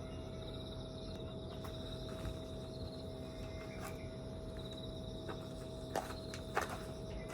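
A steady, high-pitched insect trill over low background noise, with two sharp knocks near the end.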